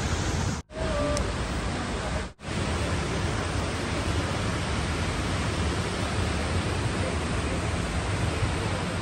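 Steady rushing roar of a tall waterfall pouring down a rock face. The sound drops out twice for an instant in the first few seconds.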